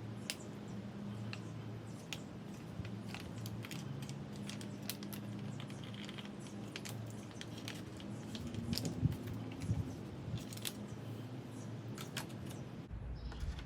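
Faint, scattered clicks and light taps from handling the oil bottle and the fill cap while topping up the new Craftsman M215 mower's engine with oil, over a steady low hum. A slightly louder cluster of handling noise comes about nine seconds in.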